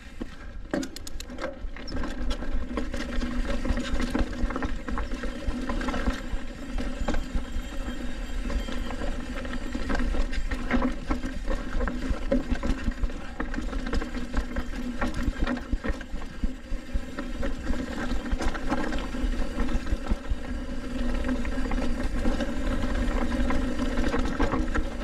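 Trek Roscoe 8 hardtail mountain bike riding a dirt trail: tyres rumbling, frequent knocks and rattles over bumps, and a steady buzz from the rear freehub.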